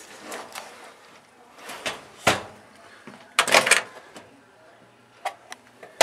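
Kitchen fittings being handled in a small room: a few rattles and clicks, a sharp knock about two seconds in, and a louder rattling clatter about three and a half seconds in.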